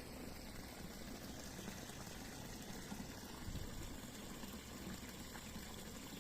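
Steady running water of a small stream, an even rushing noise.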